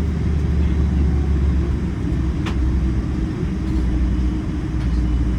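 Steady low rumble of a Boeing 777-300 heard from inside the cabin, with one short click about halfway through.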